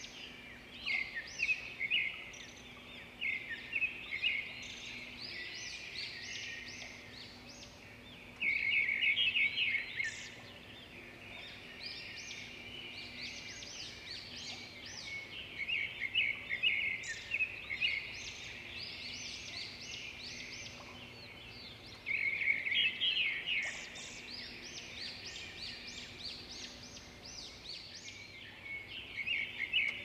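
Songbirds singing in a chorus, many short chirps and trills overlapping. A louder, rapid chattering trill breaks in twice, a little under a third of the way in and again about three-quarters of the way through.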